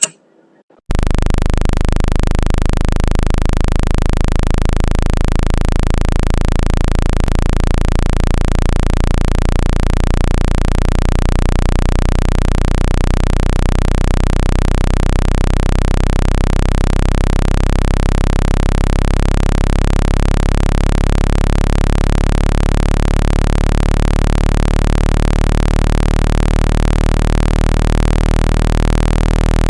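Synthetic speaker-cleaner tone: a loud, steady electronic buzz made of a deep low tone with many overtones over a hiss. It starts abruptly about a second in and holds with a slight pulsing. It is played to push water and dust out of a phone speaker grille.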